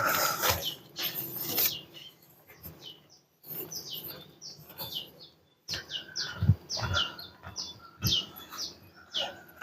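Small birds chirping, many short falling calls repeated over and over, with a loud burst of rustling in the first two seconds and a few low thumps later on.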